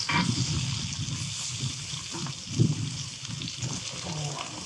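Meat frying in a hot pan, a steady crackling sizzle, with wind buffeting the microphone in low gusts.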